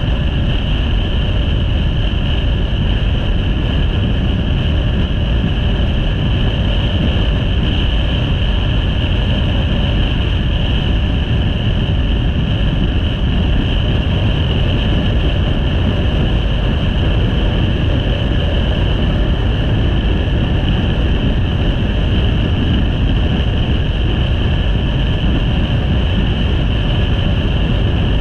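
Motorcycle at a steady cruise: constant wind rush over the bike-mounted microphone, loudest in the low range, over an even engine and road drone with a steady higher whine.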